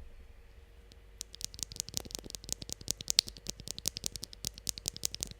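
Cycle7 mechanical keyboard with factory-lubed Keygeek Little Ghost linear switches being typed on: a fast run of clacky keystrokes that starts about a second in.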